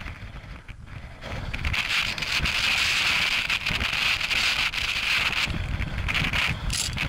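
Rustling and swishing of tall dry grass and camouflage clothing as a hunter moves through it, with wind buffeting the microphone; the noise swells about a second in and eases near the end, with a few knocks of handling.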